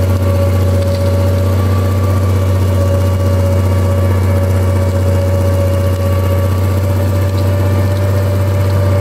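Tractor engine running steadily under load, pulling a mounted disc plough through the soil, with a strong low drone and an even hum that does not change.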